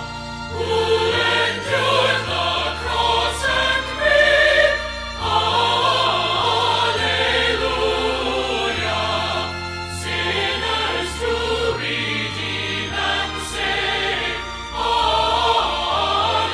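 Choir singing with instrumental accompaniment, over low held bass notes that change every second or so.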